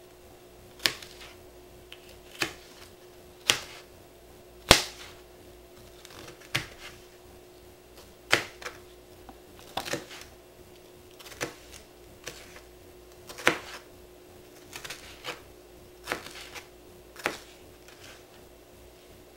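Chef's knife dicing red bell pepper on a plastic cutting board: sharp knocks of the blade striking the board, unevenly spaced about once a second.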